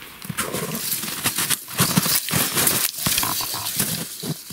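Footsteps crunching through deep snow with brush and clothing rustling, in a run of separate scrunching bursts.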